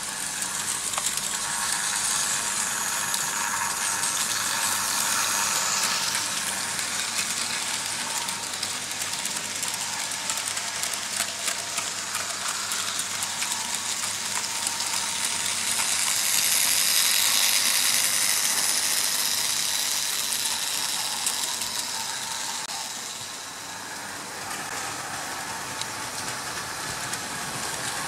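Märklin H0 model trains running on stamped-metal M-track: a steady clattering rattle of metal wheels over the track with a fine rapid ticking, growing loudest about two-thirds of the way through as a train of hopper wagons passes close by.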